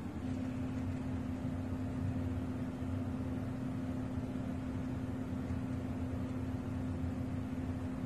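A steady hum with one constant mid-low tone over a faint even hiss, without a break.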